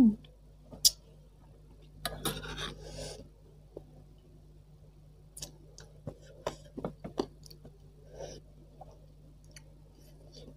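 Close-up mouth sounds of eating chicken feet by hand: a noisy sucking at the foot about two seconds in, then a run of short wet smacks and chewing clicks.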